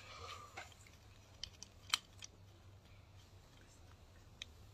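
Faint room tone with a few scattered light, sharp clicks, the loudest about two seconds in.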